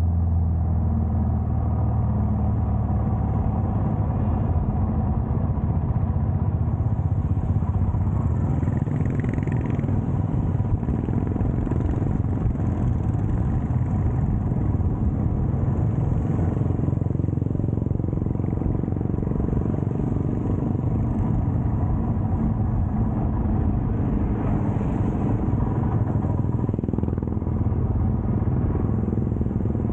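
Motorcycle engine running steadily at cruising speed, heard from on the moving bike, mixed with a continuous rush of wind and road noise.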